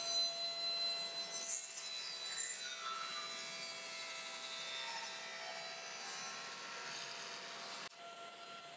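Table saw running with a dust collector, its blade crosscutting a glued-up hard maple, walnut and cherry panel on a crosscut sled. The cut is loudest in the first few seconds, the machines then run on steadily, and the level drops suddenly near the end.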